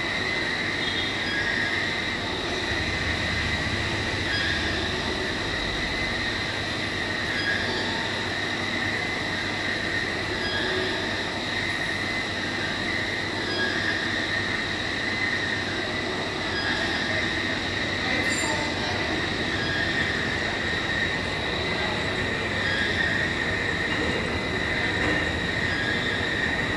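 Plano milling machine's face-milling cutter cutting a metal plate: a steady high-pitched whine over the machine's running noise.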